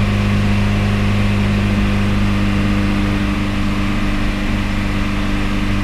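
VW Citi Golf 1.8-litre four-cylinder engine, heard from inside the cabin, running at a steady 3,000 rpm with the car stationary. It is being held at sustained revs to test oil pressure on a newly fitted oil pump.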